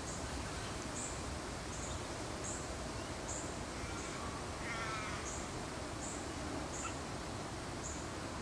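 Steady outdoor background hiss, with a bird calling once, briefly, about halfway through, and faint high chirps repeating a little more often than once a second.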